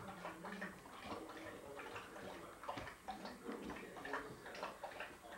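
Dogs moving about on a hardwood floor, their claws clicking faintly and irregularly on the boards.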